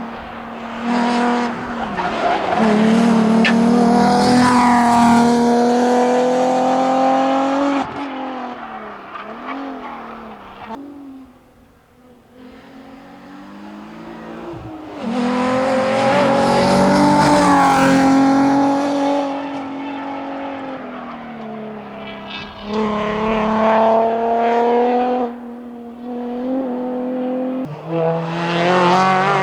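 Alfa Romeo 156 GTA rally car's V6 engine driven flat out, rising in pitch under acceleration and dropping at gear changes and braking, in three loud passes with a quieter lull in between. Near the end a different rally car's engine comes in.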